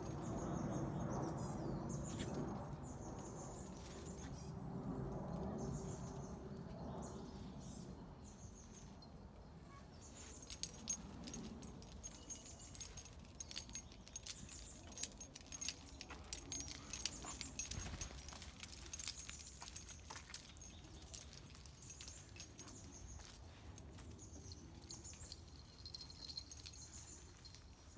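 Outdoor street ambience: a low rumble that fades over the first several seconds, birds chirping, and from about ten seconds in a long run of light, irregular clicks and jingling rattles.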